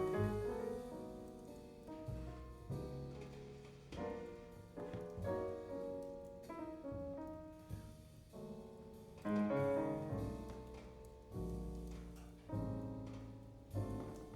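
Jazz piano trio recording played back through Sound Lab G9-7C electrostatic loudspeakers: piano notes and chords over a double bass line, heard in the room from about a meter from the panels.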